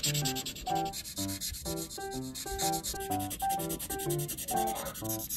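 Background music: a bouncy melody of short pitched notes stepping up and down over a fast, scratchy, evenly ticking rhythm.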